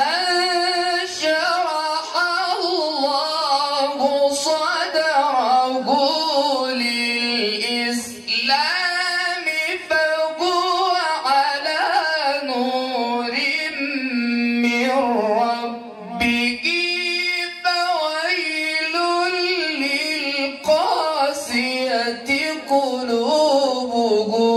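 A man's voice reciting the Quran in a drawn-out, melodic style: long, high held notes that slide and turn through ornamented phrases, with short breaks for breath about a third and two thirds of the way through.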